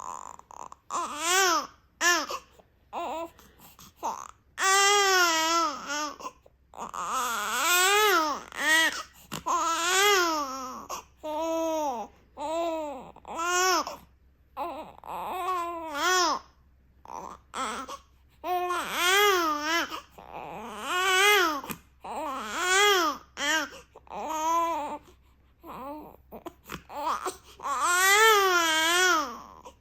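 A baby crying in a run of short wails that rise and fall in pitch, with brief pauses for breath between them. It is the fussing cry of a mild-tempered baby.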